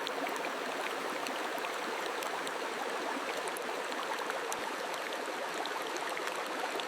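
Steady rushing noise of running water, with faint scattered ticks through it.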